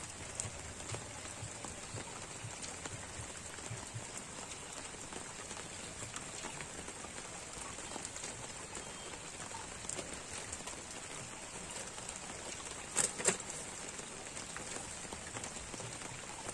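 Light rain falling on the lake surface: a steady patter of many small drops. About 13 seconds in there are two sharp knocks close together.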